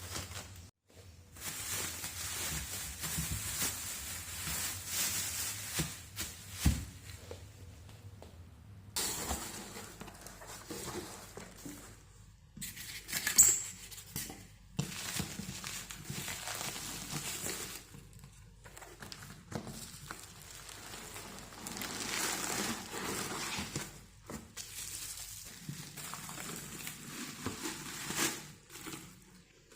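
Kitchen handling sounds: rustling with scattered clinks and knocks, the sharpest about halfway through, in short stretches broken by abrupt cuts.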